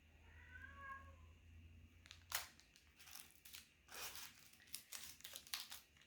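Cellophane lollipop wrappers crinkling as they are handled: a series of sharp, irregular crinkles through the second half. Near the start comes a short high cat meow.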